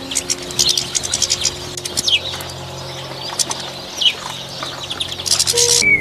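Small songbird twittering: rapid high chirps and trills, with a few short downward-sliding notes and a dense burst of trilling near the end.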